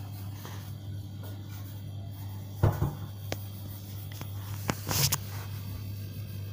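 A steady low machine hum, with a few light knocks and clicks: one about two and a half seconds in and a pair near five seconds.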